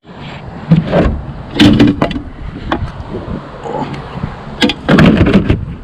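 Collected scrap items being handled and set down. There are several loud clunks and rattles about a second in, again around two seconds in, and a cluster near five seconds, over a steady background rumble.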